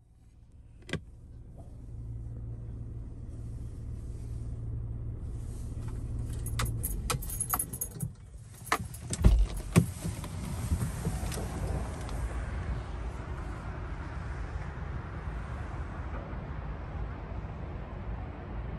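A car's steady low hum with a run of clicks and jangling, like keys or the phone being handled, about six to eight seconds in. Two sharp knocks come just past the halfway point, then a steady rumbling noise.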